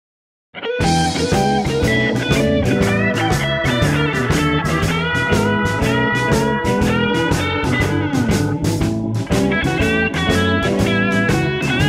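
Background music with guitar over a steady drum beat, starting abruptly about half a second in.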